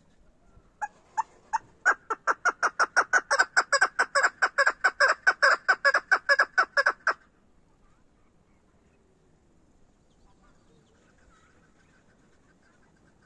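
Female chukar partridge calling: a few single sharp notes, then a fast, even run of loud chuck notes, about five a second, lasting some five seconds and stopping abruptly.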